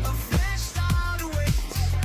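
Background pop music with a heavy bass beat, a drum hit about every half second, and a gliding melodic line.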